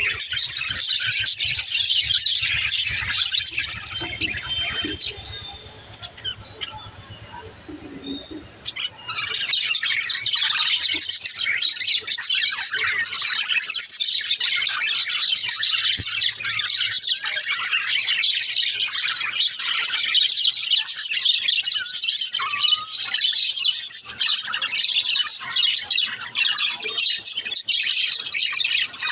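Budgerigars (parakeets) chattering and chirping in a dense, continuous stream of quick high chirps. The chirping eases off for a few seconds about five seconds in, then resumes.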